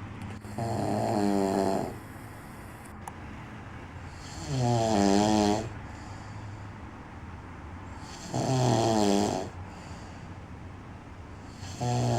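Man snoring loudly in deep sleep: three long rasping snores with a wavering pitch, about four seconds apart, and a fourth beginning near the end.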